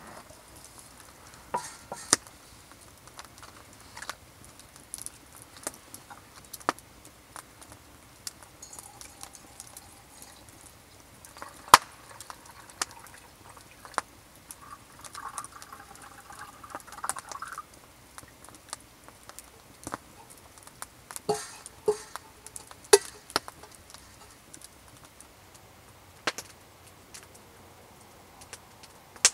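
A metal camp kettle and a steel mug being handled, with scattered clinks and knocks, and liquid poured from the kettle into the mug for about three seconds around the middle.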